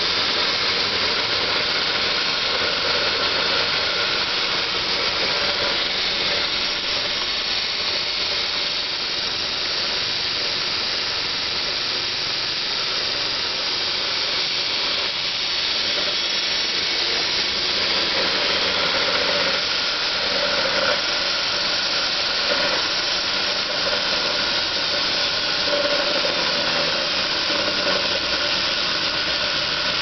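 NetGain WarP 9 series-wound DC electric motor spinning unloaded on 12 volts, a steady whirring with growling and vibration from inside the motor. The owner takes the growl for worn shaft bearings, probably at the commutator end.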